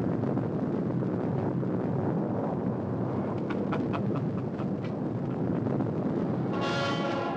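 Steady rumble of city street traffic on an old film soundtrack, with a few light clicks in the middle and a car horn sounding briefly near the end.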